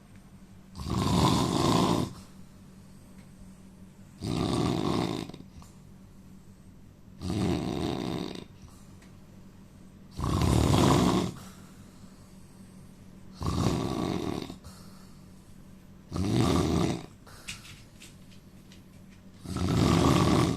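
A man snoring: seven loud, rough snores, one about every three seconds, each lasting a second or so, with quiet breathing gaps between them.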